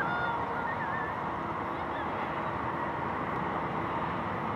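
Airbus A380-861's four Engine Alliance GP7270 turbofans on final approach with landing gear down: a steady jet rumble with a faint whine.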